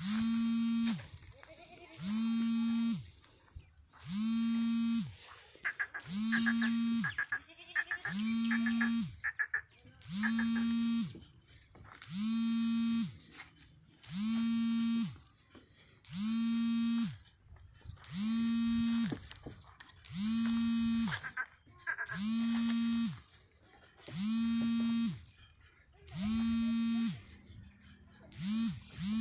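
A loud buzzing tone repeating about every two seconds, each lasting about a second and dropping in pitch as it cuts off.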